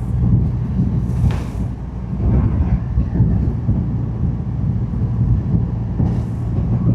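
Triumph Rocket 3 R Storm's 2.5-litre inline-three engine running steadily at a gentle cruise through its stock exhaust, with a short burst of hiss about a second in.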